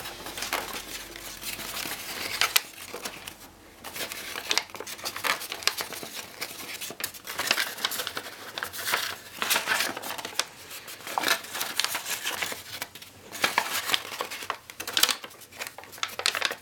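A precreased sheet of origami paper being collapsed by hand: irregular crinkling and crackling as the little kite flaps are flipped to one side and the creases pressed.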